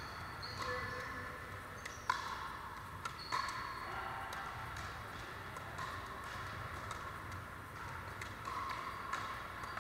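Pickleball rally: sharp pops of paddles striking the plastic ball, the loudest about two seconds in and just after three seconds, with fainter hits from other games on neighbouring courts ticking away through the rest.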